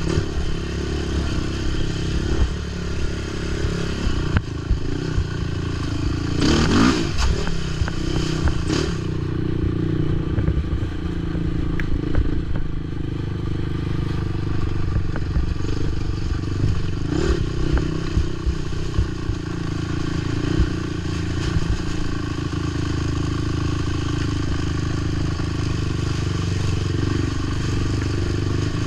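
Racing ATV engine running under load over rough cross-country ground, with clatter and thuds from the machine over the terrain. A loud knock comes about seven seconds in and a smaller one at about seventeen seconds.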